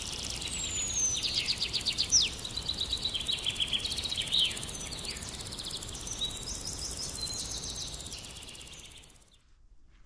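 Several songbirds singing: rapid trills and quick falling whistles over a faint steady hiss, fading out near the end.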